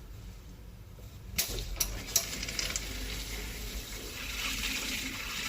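Three sharp clicks and knocks of metal or plastic fittings being handled, then water starting to run with a hiss that grows louder.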